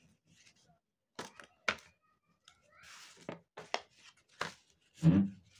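Paper being folded and creased by hand on a wooden tabletop: scattered rustles and light taps, a short swish of paper sliding about halfway through, and a louder thump near the end.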